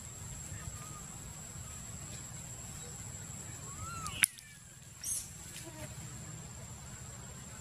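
Forest ambience: a steady high-pitched insect drone over a low rumble, with a few faint short chirps and a single sharp click a little past four seconds in.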